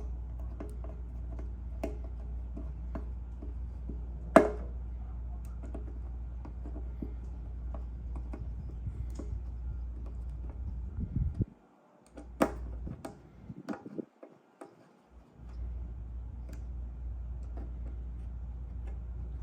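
Small metal clicks and ticks of a 4 mm hex key tightening screws on a motorcycle tank ring and gas cap, over a steady low hum. There are two sharper clicks, about four seconds in and about twelve seconds in.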